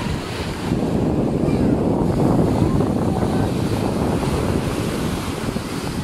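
Sea surf breaking and washing over shoreline rocks in a steady rush, mixed with wind buffeting the microphone.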